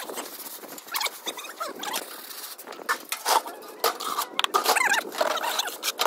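A hand float rubbing and scraping over a wet textured render on a wall, in short irregular squeaky strokes. Partway through, a trowel scrapes render out of a bucket onto the float.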